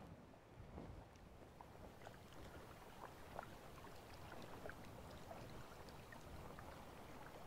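Faint lapping of small waves against shoreline rocks, heard as a soft hiss dotted with little splashes.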